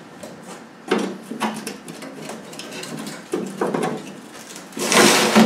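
Thin aluminium seat-box panel of a Land Rover Defender being knocked and worked loose by hand, its pop rivets drilled out: several sharp knocks and rattles, then a louder scraping rush near the end.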